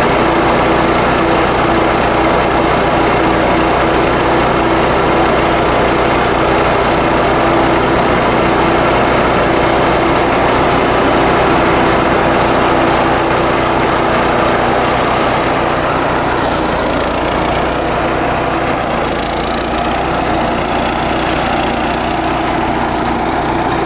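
Small engine-driven rice thresher running steadily, the motor and threshing drum making a continuous loud mechanical noise.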